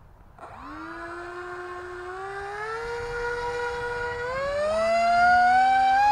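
Electric motor of a HobbyKing PrimeJet Pro RC jet on a 4S battery spooling up from rest: a high whine that starts about half a second in and climbs in pitch in steps as the throttle is advanced, getting louder, with a second lower tone joining about two thirds of the way through.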